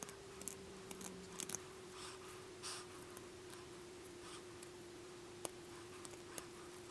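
Hook knife carving out the bowl of a wooden spoon: short scraping cuts into the wood, several quick strokes in the first three seconds, then fewer and sparser. A faint steady hum runs underneath.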